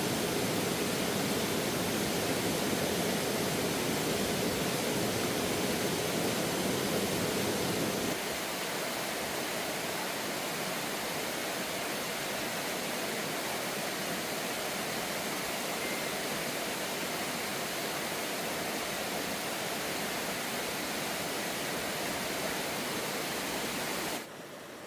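Steady rush of falling water. About eight seconds in it abruptly drops in level and loses much of its low rumble, and it drops again sharply near the end.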